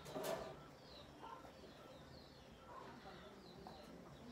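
Faint birds chirping in the background, short falling chirps about once a second over quiet room tone. At the very start there is a brief louder noise as water is drunk from a glass.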